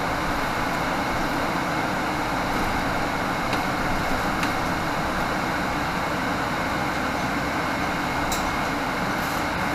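Cabin noise of a 2018 Nova Bus LFS diesel city bus on the move: steady engine and road noise, with a few faint clicks.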